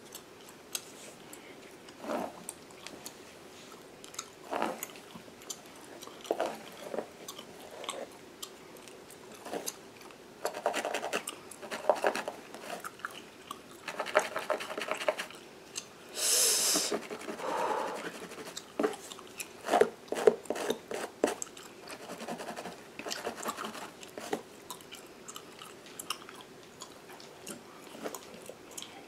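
Gum chewing and smacking close to the microphone: irregular short smacks and clicks, with a brief hiss about halfway through.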